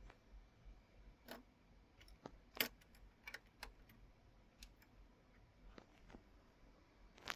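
Faint, scattered light clicks and taps, about seven spread over several seconds, the loudest about two and a half seconds in.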